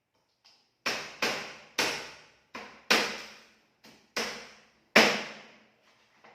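Heavy knife chopping through raw chicken carcass and bone, with about seven hard, irregular chops roughly half a second apart, each dying away quickly.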